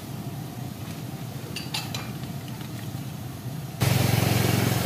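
A few light clinks of bowls and utensils at a noodle cart over a low steady hum. Near the end a motor scooter engine comes in suddenly, loud and steady.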